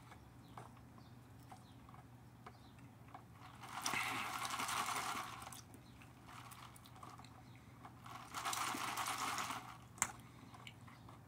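Plastic cup of iced juice being drunk from through a straw: two faint, noisy bursts of a second or two each, a few seconds apart, and a single click near the end.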